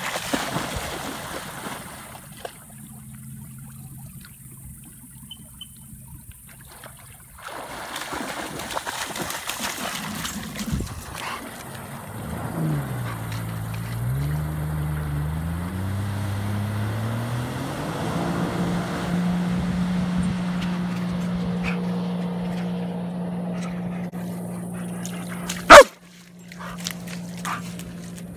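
Jet ski engine revving up, its pitch dipping and then rising as it pulls away, then running at a steady pitch as it moves off across the water. Splashing from a German Shepherd running through shallow water comes at the start, a dog vocalises at times, and there is one loud sharp knock near the end.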